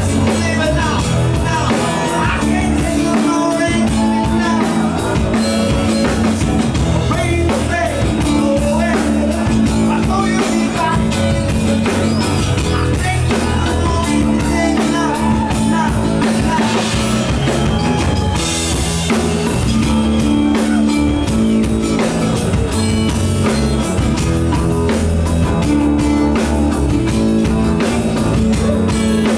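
Live rock band music: a strummed acoustic guitar and a male voice singing over the band.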